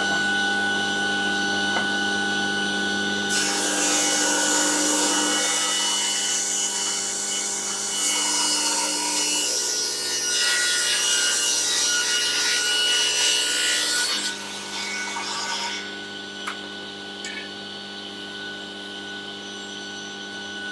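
Table saw running with its dust extractor. The blade rips a thin strip off a board from about three seconds in until about fifteen seconds in, then spins free with a steady hum.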